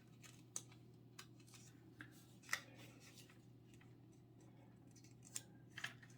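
Faint crackles and taps of a sheet of A4 paper being folded and creased flat, a handful of short sharp sounds with the loudest about two and a half seconds in, over a steady low hum.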